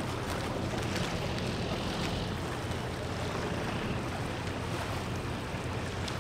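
Harbour ambience: the steady low hum of a boat engine over wind and water noise.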